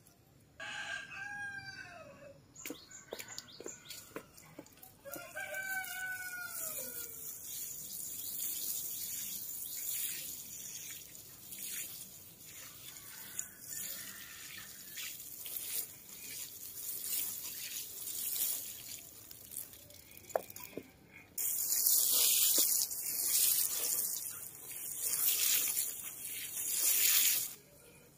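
A rooster crows twice in the first few seconds. Then water sprinkles from a watering can onto garden beds, heaviest in a long pour in the last six seconds that stops suddenly near the end.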